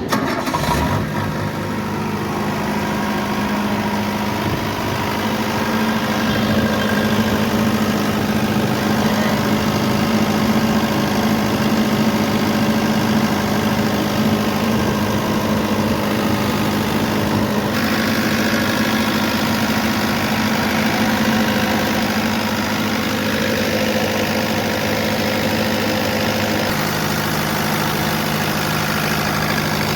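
Ashok Leyland diesel generator set in a silent enclosure running steadily at constant speed, a continuous engine hum that grows a little louder over the first few seconds and then holds even.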